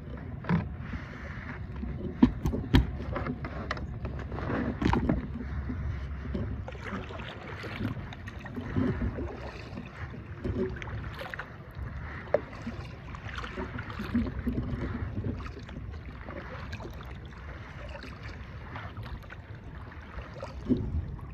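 Water moving around a fishing kayak, with a few sharp knocks against the hull.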